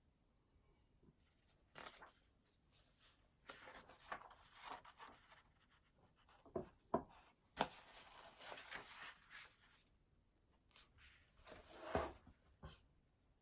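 Faint pen scratching across paper in short spells of writing, with a few sharp taps in the middle.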